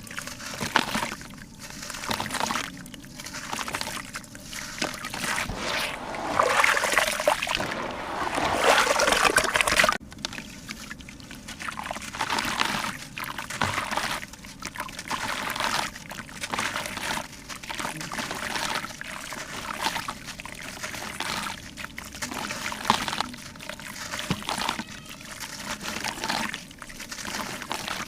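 Water splashing and trickling in surges about once a second, with a louder, busier stretch that stops abruptly about ten seconds in.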